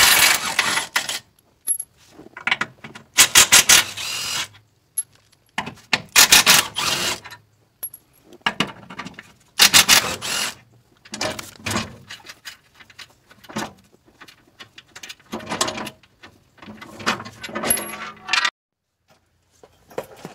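Cordless impact wrench running in repeated short bursts of about a second, loosening the 14 mm bolts that hold a Toyota 4Runner TRD Pro's skid plate. Lighter metal clinks and rattles come between the bursts.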